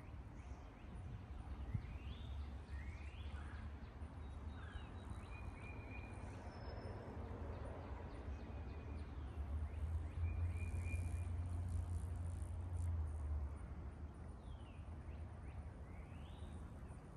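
Scattered bird calls, short rising and falling chirps heard every second or two, over a steady low rumble that grows louder around the middle.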